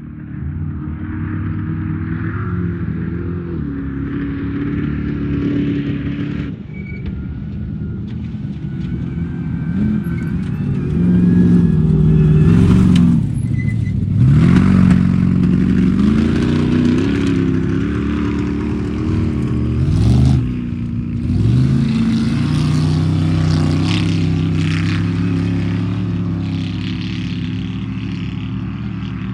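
Off-road race vehicle's engine running hard, revs rising and falling, lifting off sharply twice around the middle before climbing again, then holding steady as the sound slowly fades.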